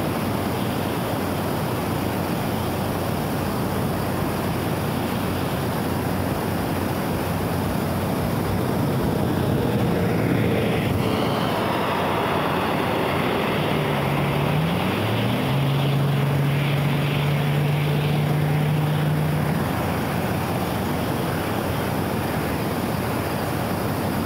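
Steady outdoor rumble of wind on the microphone. From about ten seconds in, a distant engine hum rises, shifts pitch once, holds steady for about five seconds, and fades out.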